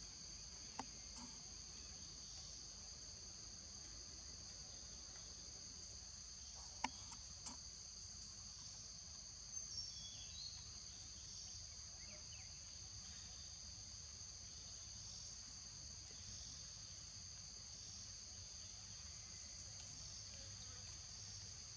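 Insects making a steady high-pitched drone on two close pitches, with a few faint sharp clicks, the loudest about seven seconds in, and a couple of brief chirps about ten seconds in.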